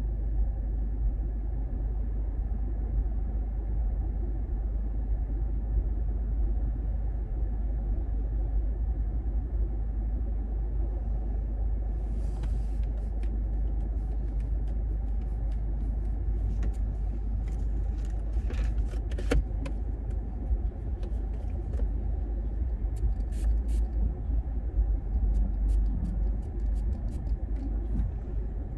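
Steady low road and engine rumble inside the cabin of a moving 2012 Toyota RAV4, with scattered small clicks and rustles of handling from about halfway through.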